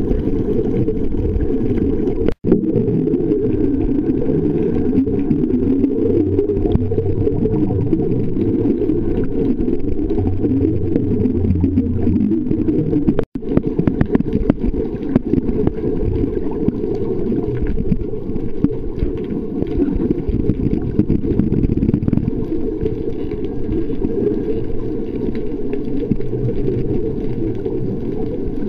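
Steady, muffled underwater rumble of water against a submerged camera housing, all of it deep and dull with almost no treble. It cuts out for an instant twice, a couple of seconds in and near the middle.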